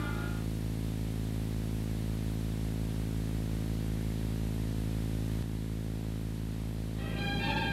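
Steady electrical hum with a faint hiss, the noise floor of an old VHS soundtrack. A music cue ends just at the start, and music comes back in near the end.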